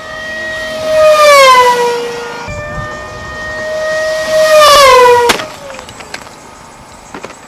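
RC aircraft motor and propeller whining as the model passes close twice, the pitch dropping as it goes by each time. About five seconds in there is a sharp crack, and after it the whine drops away.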